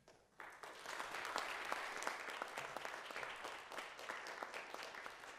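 Audience applause breaks out suddenly about half a second in and keeps going, with many overlapping hand claps.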